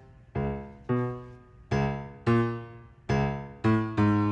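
Piano playing the introduction to a show tune: a series of struck chords, about two a second, each left to ring and fade, growing a little louder near the end.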